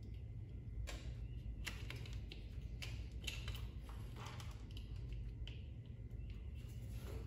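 Scattered small clicks and taps of a Phillips screwdriver and a handlebar light switch and its clamp being handled and fitted, over a low steady hum.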